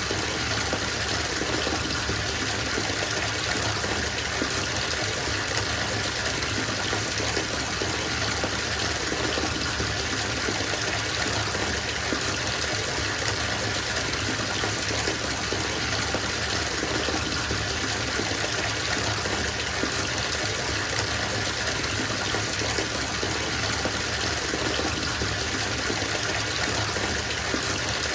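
Bathtub filling from the tap: a steady gush of water pouring into the tub.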